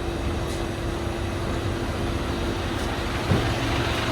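Steady rumble of a passenger train heard from on board, with a constant hum running through it and a couple of dull knocks near the end.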